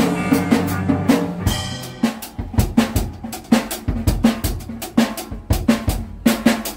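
Music with a drum kit: a held opening chord for about two seconds, then a steady beat of bass and snare drum, about four strikes a second.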